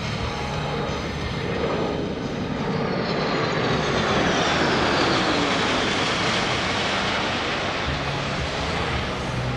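A C-17 Globemaster III's four Pratt & Whitney F117 turbofan engines in a low flyby. The jet noise swells to its loudest about halfway through as the aircraft passes overhead, with a whine that falls in pitch as it goes by, then eases as it flies away.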